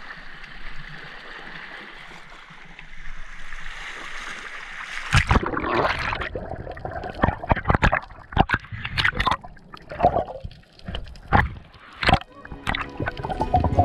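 Sea water hissing and washing over a rocky shore. About five seconds in the sound changes abruptly to the muffled underwater sound of a freedive, with gurgling water and many irregular sharp clicks and knocks.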